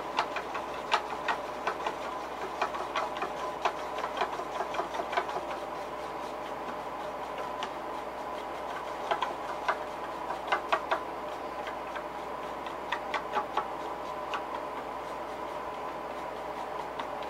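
Acrylic craft paint being stirred in a small cup, making quick light clicks and taps in three bursts with pauses between. A steady hum runs behind.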